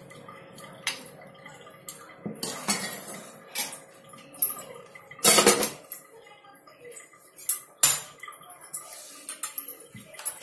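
Steel ladle clinking and scraping against a metal pressure cooker and dishes as dal is served, a string of short, sharp clinks with a louder clatter about five seconds in.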